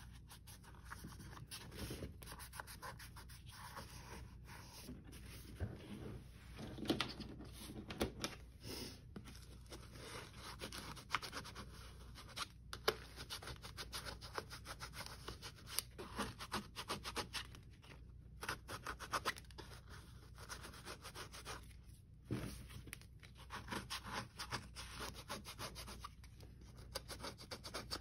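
Fingers and a white plastic scraper rubbing and scraping over glued fabric on a hardback book cover, pressing it down so the glue holds. The sound is many quick scratchy strokes in runs, with a few short pauses.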